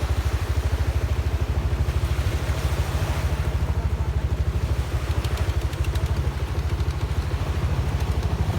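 An engine idling steadily with a fast, even low thudding beat.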